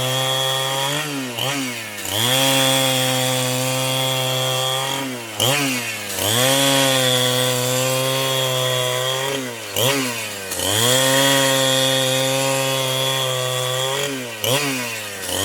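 Chainsaw running at high revs, sawing through a block of wood. Its engine note dips and climbs back up four times, about every four seconds.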